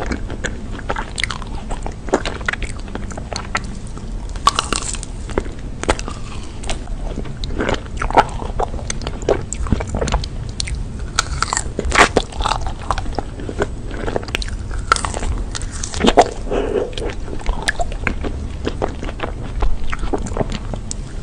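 Close-miked biting and chewing of a chocolate-coated ice cream bar on a stick, the hard chocolate shell cracking and crunching in many irregular sharp snaps.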